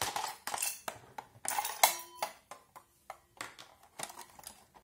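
Hollow plastic housing of a rechargeable halogen spotlight being handled and turned over: a string of irregular light clicks and knocks, a few of them leaving a short ringing note.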